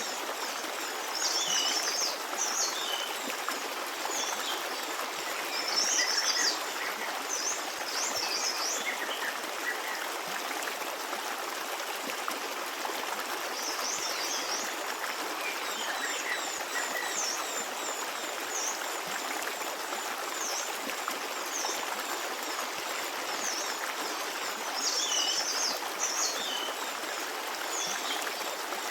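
Forest stream running steadily, a continuous babbling rush of water. Small birds chirp over it in clusters of quick high notes several times, about a second in, around six to nine seconds, mid-way and near the end.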